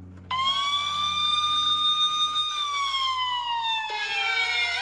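Alert siren wailing: it starts abruptly, holds a steady high pitch, then slides slowly down, and near the end a second wail begins rising.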